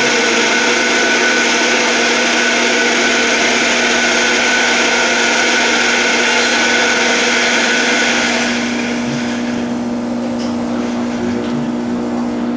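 A vehicle running steadily at speed: a loud, even rushing noise over a steady hum. It eases off a little about eight and a half seconds in.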